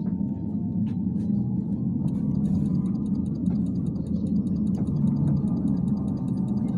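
Steady low rumble inside a moving Bogdan T701.10 trolleybus, with a faint gliding whine. From about two seconds in there is a fast, even ticking.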